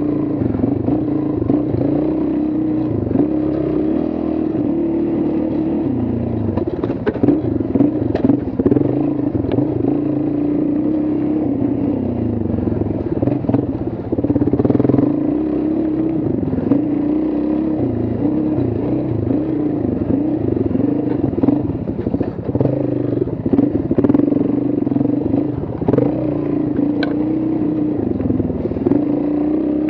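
Motorcycle engines running throughout, the engine note rising and falling again and again as the throttle is worked, with occasional clatter and sharp ticks.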